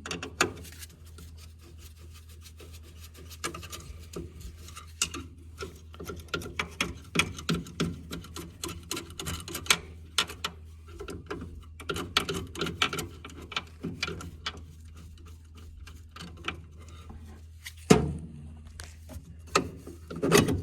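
Hand tools and small metal burner parts being handled while an oil burner's nozzle assembly is worked on: scattered irregular clicks, taps and rubbing, with a sharp knock near the end. A steady low hum runs underneath.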